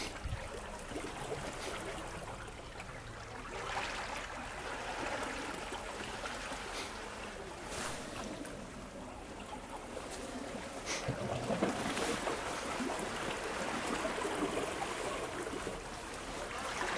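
Small sea waves washing and lapping against shoreline rocks, a gentle wash that swells and eases every few seconds, with small splashes.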